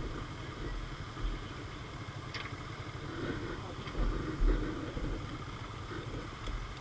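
Motorcycle engines running at low speed while the bikes crawl over a rough dirt trail, with a few low thumps, the loudest about four seconds in.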